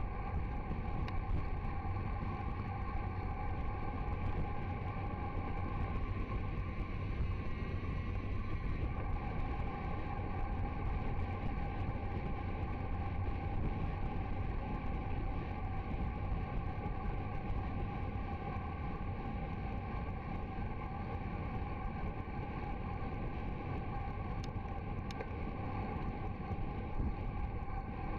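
Steady wind rush over an action camera's microphone on a bicycle descending a mountain road at about 50–60 km/h, with a faint steady hum under it.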